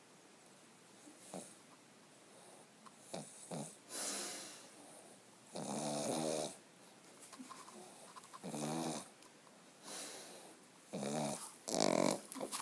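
Pug snoring while awake: an irregular run of rasping snore-breaths a second or two apart, the loudest about halfway through and near the end. The sound comes from the short-muzzled breed's narrow airway.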